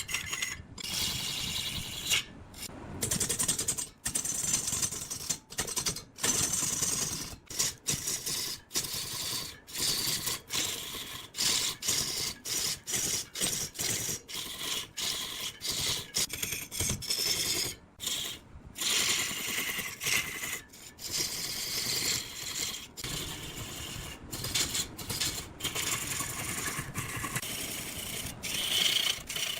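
Power woodworking tools scraping and cutting into wood, heard as a string of short clips that break off abruptly every second or two.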